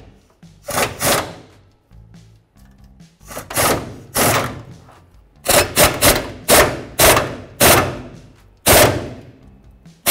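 Impact wrench with a 21 mm socket running down the upper bolt of a new rear shock absorber in a series of short hammering bursts, with pauses between them, until the bolt is tight.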